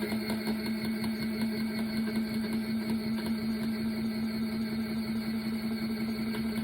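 Folding mini washing machine running its wash cycle: its small motor hums steadily at one constant pitch.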